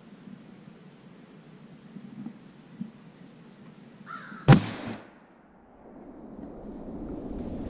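A single gunshot from a deer hunter's long gun about four and a half seconds in, with a short echoing tail. A low rustling noise builds up near the end.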